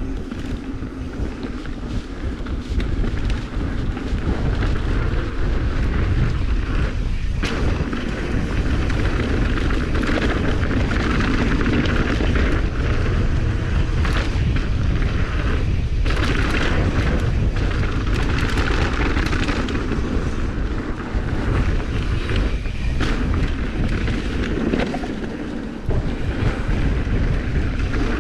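Wind buffeting the microphone of a camera worn by a mountain biker at speed, a loud continuous rumble, mixed with the hiss of tyres on a dirt trail and scattered knocks and rattles from the bike over bumps.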